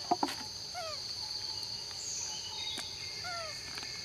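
Steady high-pitched drone of forest insects, with a few short falling chirp calls scattered through it and two sharp clicks right at the start.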